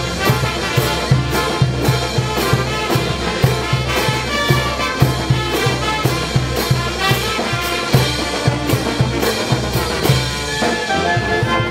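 A large brass band plays: sousaphones, trumpets, trombones and saxophones over a steady beat of bass drum, snare drums and crash cymbals. Near the end the drums drop out for a moment before the next passage starts.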